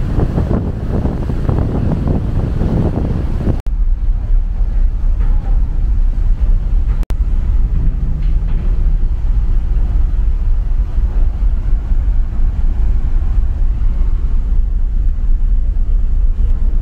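Wind buffeting the microphone on a ferry's open deck over the deep, steady rumble of the ship. The sound breaks off abruptly about three and a half seconds in and again near seven seconds, and is lower and steadier after the first break.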